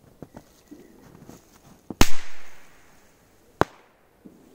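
A two-bang firecracker going off: a sharp loud bang about two seconds in, with a short echo dying away, then a second, quieter bang about a second and a half later.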